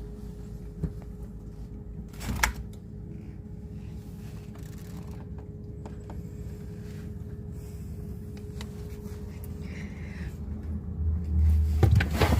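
Steady low hum with a faint held tone, broken about two seconds in by a single knock like a refrigerator door being pulled open, with a few faint clicks after. A louder low rumble comes in near the end.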